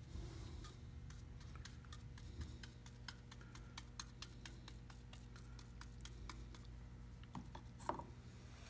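Faint, irregular ticks and small clicks of a brush dabbing epoxy resin into fiberglass cloth on a wooden keel, over a steady low hum.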